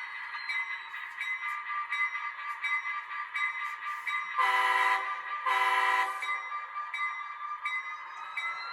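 Two train-horn blasts, each just under a second, over background music with a steady beat.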